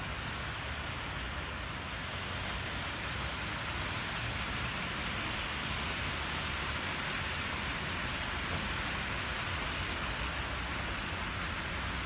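Hail and rain falling steadily: a dense, even hiss with faint scattered ticks of hailstones through it.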